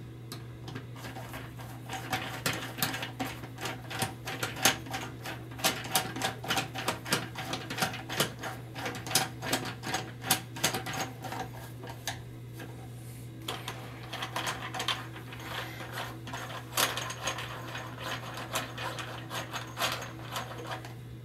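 Plastic toilet-seat nuts being screwed onto plastic bolts, a rapid run of small clicks and rattles from the threads and parts. It comes in two bouts with a short break about halfway through, over a steady low hum.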